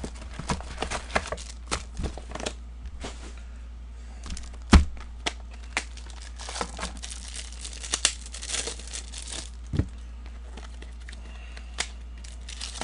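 Trading-card pack wrappers crinkling and tearing and cards being handled, a run of sharp clicks and rustles, with a hard thump about five seconds in and a softer one near ten seconds.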